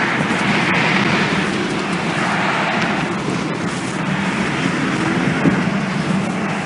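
Steady loud roar of tornado wind, heard through a phone microphone that is muffled against clothing.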